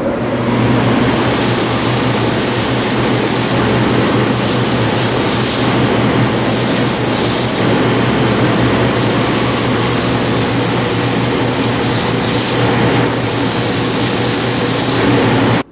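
Shoe finishing machine running with a steady hum while its spinning sanding wheels grind the edge of a Vibram Ripple rubber sole; a harsh high hiss comes and goes several times as the sole is pressed to the wheel. The sound stops abruptly at the end.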